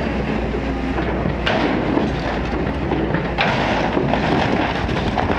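Caterpillar tracked excavator's diesel engine running under load as its demolition attachment tears into a building's wall and roof, with crunching and cracking of breaking material. There are two sharp crashes, about a second and a half in and again at about three and a half seconds.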